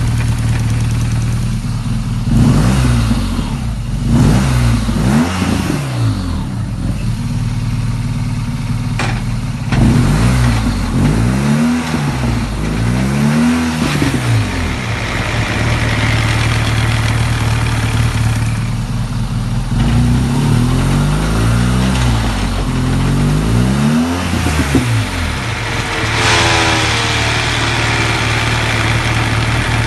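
Vehicle engine idling and blipped on the throttle again and again, each rev rising and falling back to idle, to show a strange noise that comes off the throttle. Near the end a hissing noise with a falling whine comes in.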